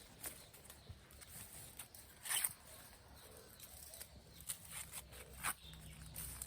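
A few short, scattered rustles and scrapes over a faint low hum, the loudest about two and a half seconds in.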